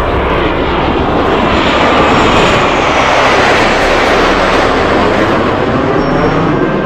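Jet engines of a formation of Blue Angels F/A-18 fighter jets passing low overhead. The loud jet noise builds to a peak about two seconds in, then drops in pitch as the jets pass and move away.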